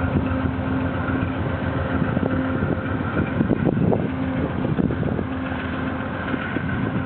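Genesis P40DC diesel locomotive running steadily as its train departs, with a constant engine hum and irregular clicks and knocks of wheels over rail joints.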